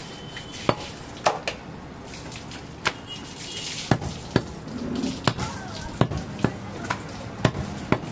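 Heavy butcher's knife chopping goat meat on a wooden chopping block: sharp, irregular knocks of the blade hitting the wood, about a dozen in all, some in quick pairs.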